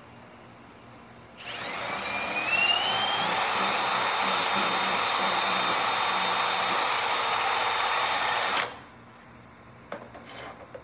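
Power drill boring out a hole in a motorcycle's plastic fairing. It spins up about a second in with a whine that rises in pitch, runs steadily for about seven seconds, then stops suddenly. A few light clicks follow near the end.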